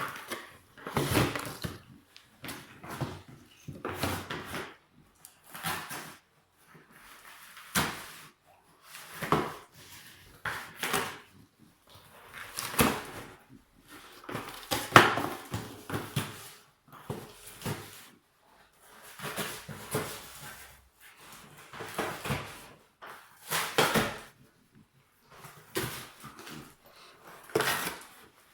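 French bulldog scrabbling and nosing at a box, making irregular bursts of scraping, rustling and knocking with short pauses between them.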